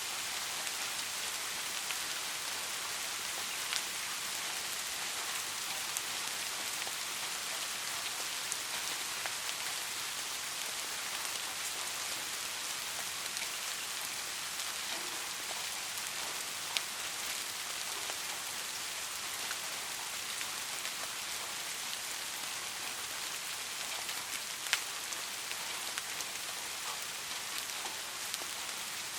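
Steady soft rain falling, an even hiss with scattered individual drop taps, a few sharper ones standing out.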